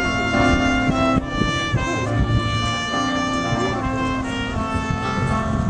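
Instrumental music playing steadily, with held melody notes layered over each other.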